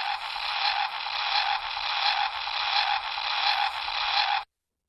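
Power Rangers Ninja Storm Wind Morpher toy playing a steady hissing, static-like sound effect through its small speaker, then cutting off sharply near the end. This is the sound it gives when the middle morph button is pressed without spinning the coin.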